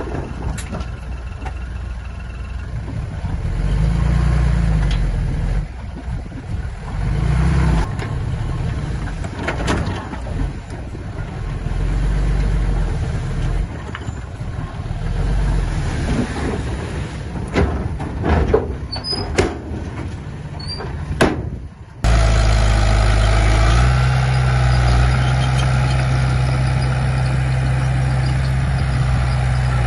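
Diesel engines of earth-moving machines working, with scattered sharp clanks and knocks. About two thirds of the way through the sound cuts abruptly to a louder, steady engine running.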